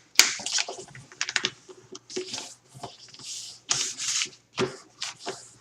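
A sheet of copy paper being folded and creased by hand: crisp crackling and rustling, with a few longer swishes about halfway through.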